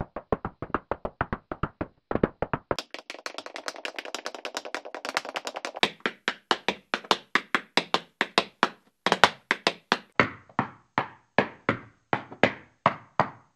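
Tap-dance shoe taps, digitally modified. A quick run of sharp taps is followed by the same taps slowed down in stages, ending at about two or three taps a second, each one longer and deeper.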